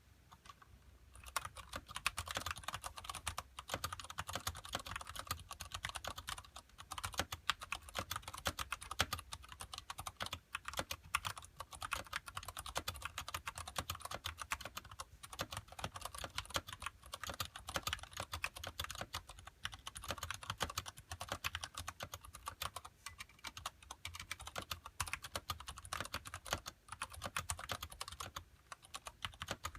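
Fast, continuous typing on a mechanical keyboard with Cherry MX Brown tactile switches and thick PBT keycaps, a dense run of keystroke clicks that starts about a second in and carries on with only brief pauses.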